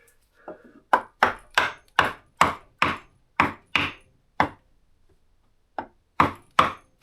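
Hammer tapping a new knife handle onto its tang: about a dozen sharp, evenly spaced knocks at roughly three a second, a pause of about a second, then three more taps near the end.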